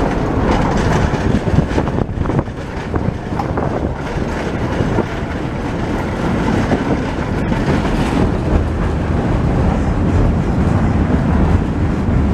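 Tatra T3-type tram running along its track, with the steady rumble of steel wheels on rails and a few sharp clicks over rail joints about two seconds in. Heard through an open side window of the moving car.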